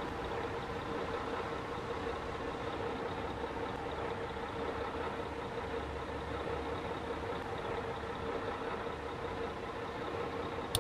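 Bus engine idling steadily with an even, unchanging hum, and one short click near the end.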